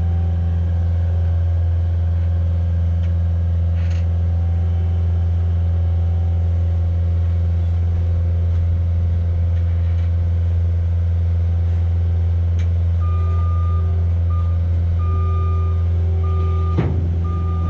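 Tracked skid loader's diesel engine running steadily under load as it sets a round hay bale onto a flatbed trailer. About thirteen seconds in, its backup alarm starts a steady on-off beeping as it reverses, and there is a single clank near the end.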